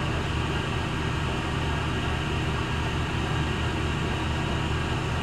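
Hardinge HC chucker lathe running with a steady hum during the facing operation on a solid brass bullet blank.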